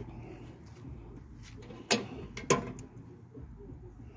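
Two sharp metal clanks about half a second apart as the steel firebox lid of an Old Country Pecos offset smoker is opened.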